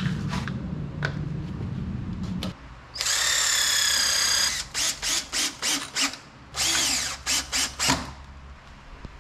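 Makita 18V cordless drill-driver driving screws into wood. The motor whines steadily for about a second and a half, then gives a run of short trigger bursts as the screw is seated; a second long whine and more short bursts follow. A low drone fills the first two and a half seconds.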